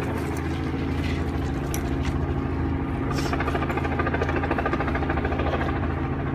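An engine idling steadily: a low hum with a fast, even pulse that holds without change.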